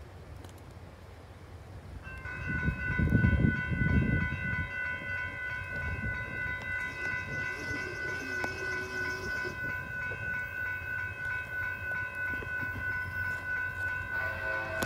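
Railroad grade-crossing warning bell that starts ringing suddenly about two seconds in and keeps a steady, pulsing ring, the sign that a train is approaching the crossing. A low rumble of wind on the microphone comes through briefly early on.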